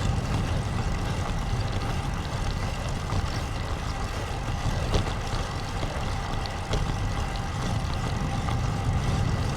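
Steady low wind rumble buffeting an action camera's microphone on a moving road bicycle, in strong gusty wind.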